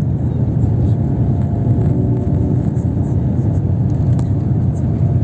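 Airliner cabin noise during landing: a steady low rumble of the engines and airflow, with a faint steady hum over it and a small tick about four seconds in.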